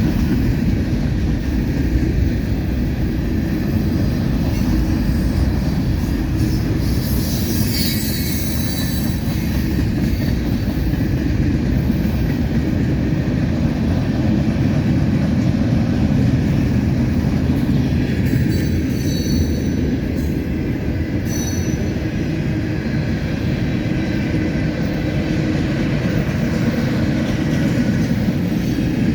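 Freight cars of a CSX mixed manifest train rolling past: a steady low rumble of wheels on rail, with a few brief high-pitched wheel squeals.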